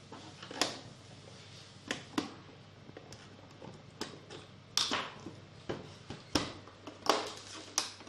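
Irregular sharp clicks and knocks of a plastic projector housing and its parts being handled and worked apart by hand, about a dozen in all, the loudest near the middle and toward the end.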